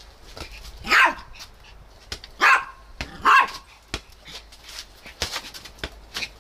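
A small dog barking three times, once about a second in and twice close together around two and a half to three and a half seconds, while a ball is being kicked about. A few light knocks fall between and after the barks.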